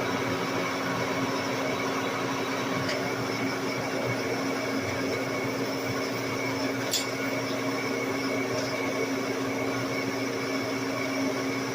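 Lodge & Shipley 1610 Power Turn lathe running steadily under a heavy roughing cut on a large ring, a constant machine hum with a steady tone, broken by a few sharp ticks about three, seven and eight and a half seconds in.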